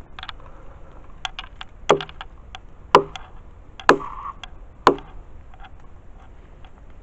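Footsteps through dry leaf litter and twigs: sharp cracks and snaps, four loud ones about a second apart in the middle, with lighter crunches and leaf rustles between.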